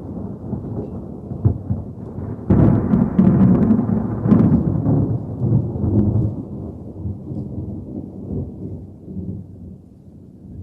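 Thunder: a low rumble, then a sudden sharp crack about two and a half seconds in that rolls on and slowly dies away.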